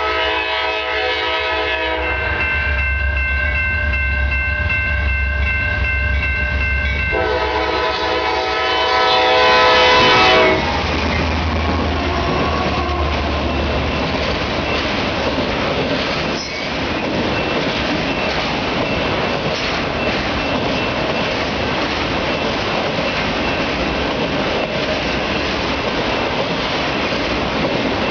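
Diesel freight locomotive horn blowing a chord in long blasts, growing loudest just before it cuts off about ten seconds in, over the low rumble of the GE C40-9W and EMD SD60 locomotives' diesel engines. Then the steady rolling and clatter of autorack freight cars passing on the rails, with one sharp clank midway.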